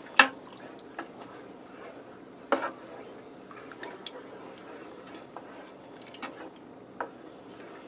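A wooden spoon stirring a pot of thick tomato-and-broth soup, the liquid sloshing and squelching. A few sharp knocks of the spoon against the pot sound, the loudest just after the start and about two and a half seconds in.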